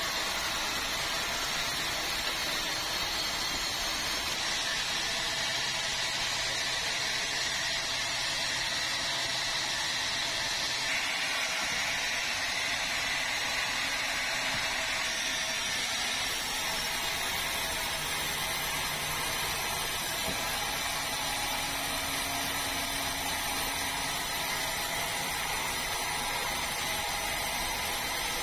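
Large sawmill log bandsaw running as it cuts red meranti timber: a continuous machine noise with hiss, with no pauses.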